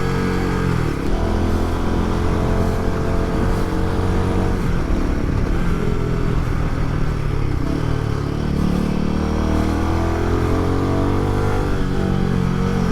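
Royal Enfield Himalayan 450's 452 cc single-cylinder engine running through a prototype aftermarket exhaust while the bike is ridden through corners. Revs drop about four to five seconds in, then climb steadily over several seconds before easing off near the end.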